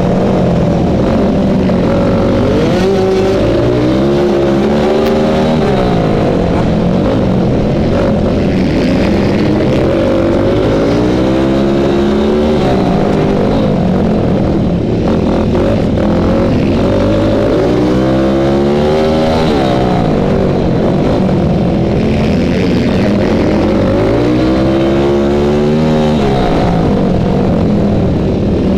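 Onboard sound of a dirt-track motorcycle engine, revving up and winding back down four times, about every seven seconds, as the bike accelerates down each straight and backs off for the turns of the oval.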